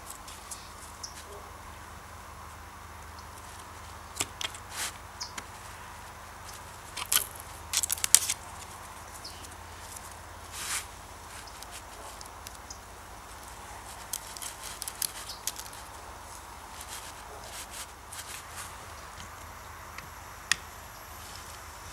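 Scattered light clicks and knocks of hand tools and metal parts being handled, loudest in a quick cluster about a third of the way in, over faint steady background noise.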